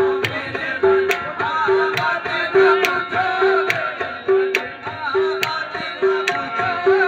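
Qawwali music: tabla keeps a steady rhythm, a short ringing drum note about every 0.8 s with sharp high strikes, under a wavering melody.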